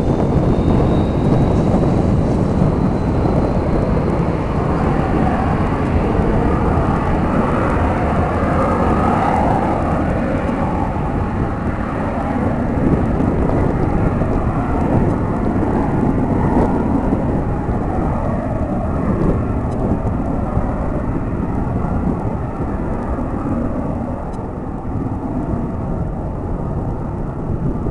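Cessna Citation Mustang's twin Pratt & Whitney PW615F turbofans at takeoff power: a deep, steady growl with a faint high whine rising slightly in the first seconds. It eases a little near the end as the jet lifts off and climbs away.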